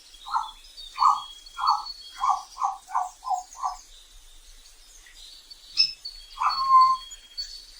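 Birds calling: a run of eight short, mid-pitched calls that come quicker and quicker, then one longer call near the end, with thin high chirps over them.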